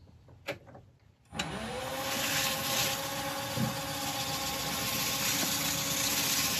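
A wood lathe starts up about a second and a half in, its motor rising briefly in pitch and then running steadily. A paper towel rubs against the spinning olive ash bowl, buffing in a linseed-oil and beeswax finish, with a steady hiss above the motor.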